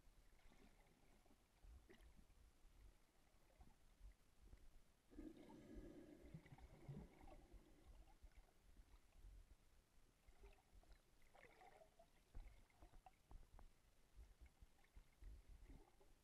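Near silence underwater, heard through a camera's waterproof housing: faint low rumbling and scattered soft knocks, with a brief muffled burst of water noise about five seconds in and a smaller one near twelve seconds.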